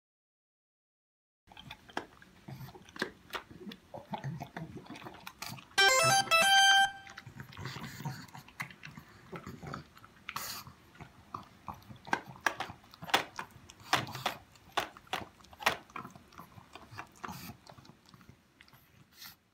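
A pug crunching and chewing its food from a steel bowl, a fast, irregular run of crunches and clicks starting about a second and a half in. A short electronic jingle sounds about six seconds in.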